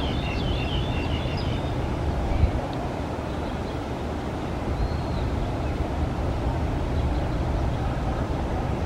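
ATR 72-600 turboprop airliner on approach to land, a steady low drone from its propellers and engines. Birds chirp briefly in the first second or so, and there is one short thump about two and a half seconds in.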